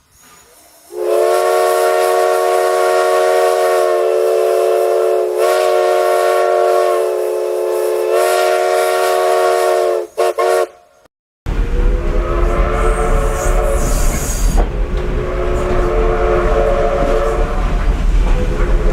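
A multi-note train whistle sounds one long, steady chord for about nine seconds, then cuts off suddenly. After a short silence, a train whistle blows again over the low rumble of a moving train.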